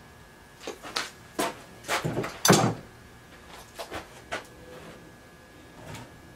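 Red cedar strips knocking and clunking against each other and a wooden workbench as they are handled and set down: a cluster of knocks in the first few seconds, the loudest about two and a half seconds in, then a few lighter taps.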